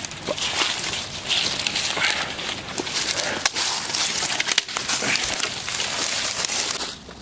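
Continuous close rustling and crackling, with a few sharp clicks and snaps, from people moving and handling gear right next to the microphone.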